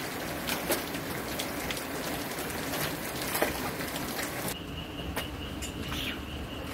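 Steady rain hiss with scattered sharp drops and taps. About two-thirds of the way in the hiss stops abruptly, and an insect's steady high-pitched trill carries on with a few ticks.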